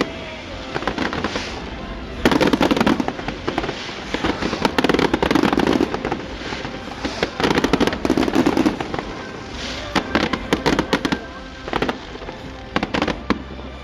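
Aerial fireworks going off in repeated volleys of sharp bangs and rapid crackling, a new cluster every second or two.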